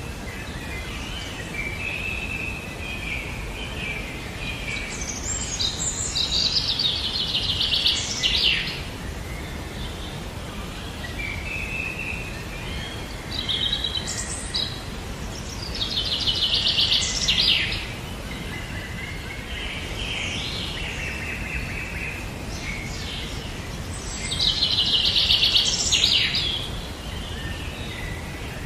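Wild birds singing: a loud, fast trilled phrase comes three times, about ten seconds apart, with softer chirps between, over a steady low background rumble.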